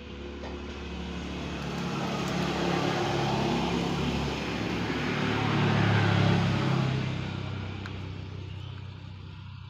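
A motor vehicle driving past, its engine and road noise swelling to a peak about six seconds in, then fading away.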